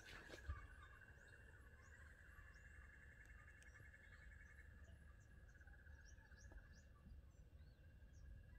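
Faint outdoor ambience: a steady, high insect trill with a faster pulsing stretch a couple of seconds in, and small birds chirping faintly and intermittently.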